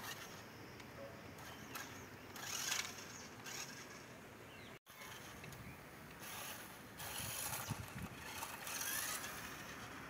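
Small electric motors and gears of toy remote-control off-road cars whirring in several short bursts.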